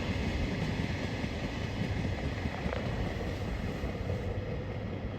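A freight train of Koki container flatcars rolling past with steady wheel-on-rail noise, fading slightly in its last second.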